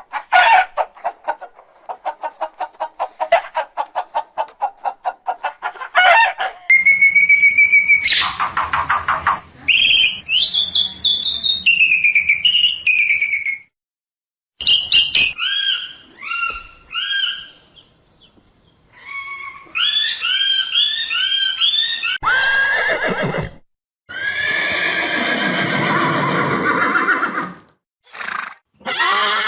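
Horses whinnying and neighing, a series of separate shrill, quavering calls with short silent breaks between them.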